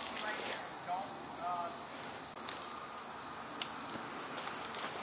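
Insects, such as crickets, chirring in a steady, high-pitched chorus that does not let up.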